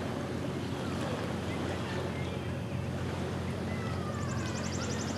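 Small lake waves lapping at a sandy shore in the wind, over a steady low drone. There are faint scattered bird chirps, and a rapid high trill starts about four seconds in.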